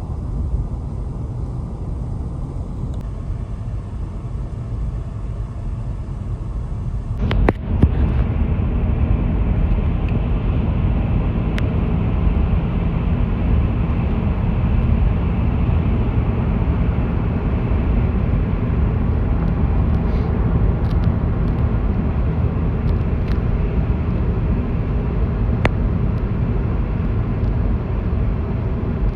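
Steady low rumble of a vehicle on the move, with a sharp knock about seven seconds in, after which the rumble is louder.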